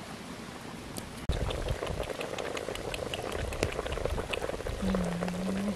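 Pot of fish soup boiling over a wood fire: a dense, steady bubbling with scattered small crackles, starting abruptly about a second in. A short low steady hum sounds near the end.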